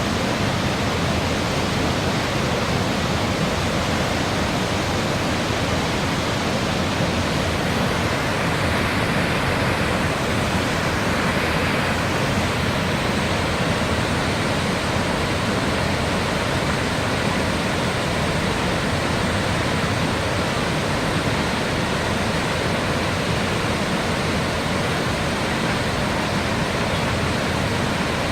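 Cumberland Falls, a large river waterfall, giving a steady, unbroken rush of falling water.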